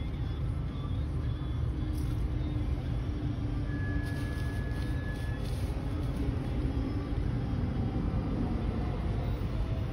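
A Pierce fire engine's diesel engine running as the truck pulls slowly out and drives past close by, a steady low rumble. A short, steady high tone lasting over a second sounds about four seconds in.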